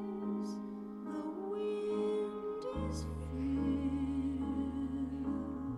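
Dance-routine music playing: a slow piece with long held, wavering notes.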